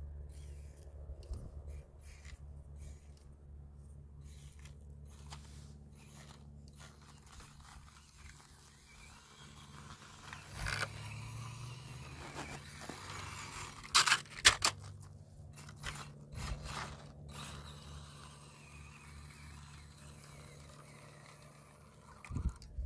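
Small 1/24-scale RC crawler with a brushless motor driving over rough ground. A faint steady drivetrain hum runs under scattered scraping and crunching of the tyres and chassis on dirt and rock, with a few sharp knocks about 14 seconds in.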